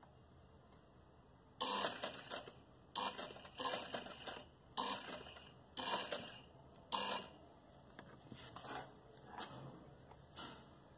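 Sewing machine stitching a zip onto cloth in short runs of about half a second to a second each, with brief pauses between, followed by a few fainter clicks near the end.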